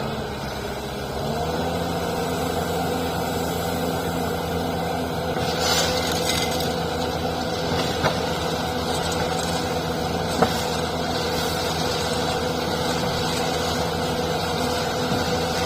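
Diesel engine of an Ajax Fiori self-loading loader-mixer running steadily. Its speed steps up a little about a second in. A brief hiss comes around the middle, and two sharp metallic knocks follow a couple of seconds apart.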